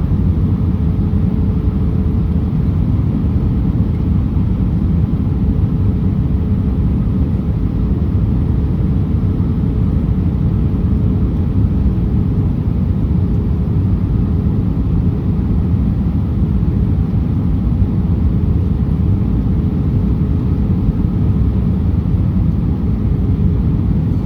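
Airbus A319 cabin noise: a steady, loud low rumble of engines and rushing air, with a faint constant hum over it.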